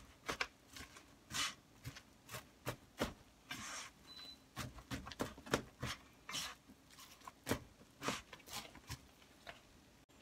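Silicone spatula stirring and scraping sticky, marshmallow-coated puffed rice around a non-stick frying pan, in irregular short scrapes and rustles.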